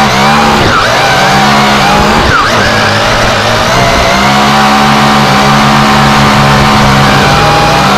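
Multicopter's electric motors and propellers whining close to the onboard camera, the pitch wandering as the throttle changes. The steady whine breaks up with quick pitch swoops during the first few seconds, as the craft pitches or tumbles, then settles back to a steady whine that rises slightly near the end.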